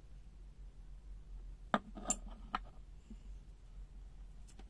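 Long steel screwdriver bits from a Devon 800173C005 set clinking against each other as they are handled: three sharp metallic clicks close together about two seconds in, and a fainter click near the end.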